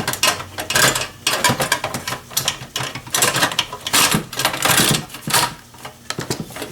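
Irregular clicks, scrapes and rattles of a hard drive and its cables being worked into a metal drive bay inside a desktop PC case.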